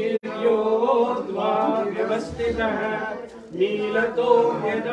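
Male voices chanting Sanskrit mantras in a steady, sing-song recitation, with a brief break just after the start.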